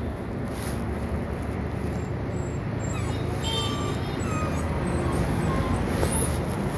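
Steady low rumble of road traffic, with a few faint short high chirps around the middle.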